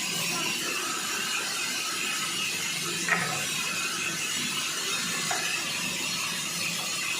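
Sawmill machinery running steadily, with a sharp click about three seconds in and a lighter one a couple of seconds later.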